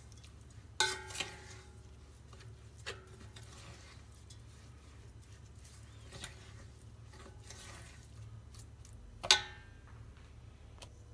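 A wooden spoon stirs wet bulgur in a stainless steel mixing bowl. The spoon knocks the bowl's side with a short metallic ring about a second in, then come soft, scattered stirring sounds, and near the end a louder knock rings the bowl again as the spoon is set down against it.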